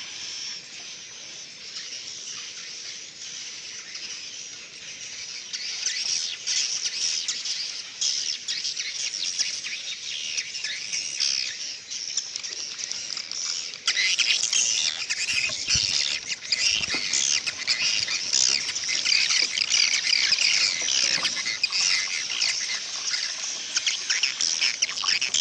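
A colony of edible-nest swiftlets twittering and chirping inside a swiftlet house: a dense, overlapping chatter of high calls. It grows louder about six seconds in and again halfway through.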